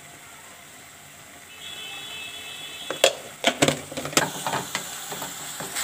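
Utensils knocking and clinking against a non-stick kadai, a handful of sharp knocks from about three seconds in, while chili powder goes into the frying masala paste. Before the knocks there is a faint steady high tone of about a second and a half.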